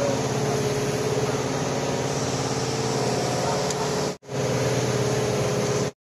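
Outrigger fishing boat's engine running steadily under way, over a steady rush of wind and water; the sound cuts out briefly about four seconds in.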